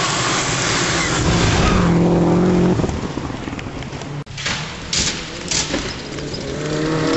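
Rally car on a gravel stage at high revs, its engine and tyres on loose gravel loud for the first few seconds. The sound breaks off abruptly about four seconds in. A few sharp clicks follow, then a second rally car's engine grows louder as it approaches near the end.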